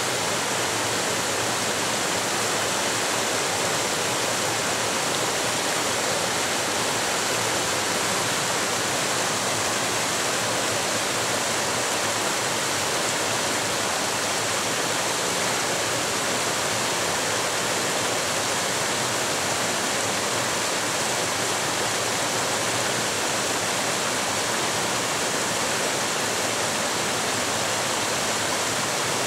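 Mountain creek rushing and splashing over boulders in small cascades, a steady unbroken noise.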